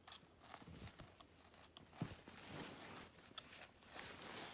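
Near silence with faint rustles and soft knocks, one a little louder about two seconds in.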